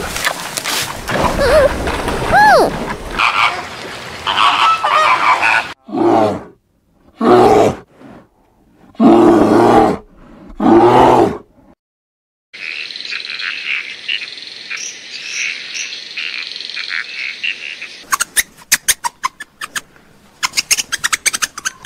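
A run of different animal calls, one after another: a few short rising calls, then four loud calls about a second and a half apart, a steady high chirring, and rapid sharp clicks near the end.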